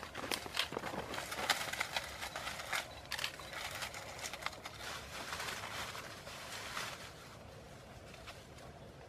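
Leafy branches of a hut roof rustling and crackling as they are pushed and arranged by hand: a busy run of small crackles and snaps that grows quieter about seven seconds in.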